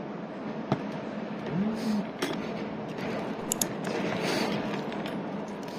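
Metal spoon and fork clinking and scraping against a plate, a few sharp clinks including two in quick succession about halfway through, over a steady background hum.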